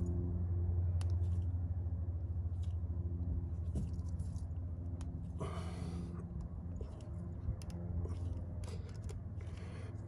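Faint clicks and scrapes of a tire-plug probe being worked into a puncture in the tire tread, with two short rasping noises, one about halfway through and one near the end, over a steady low hum.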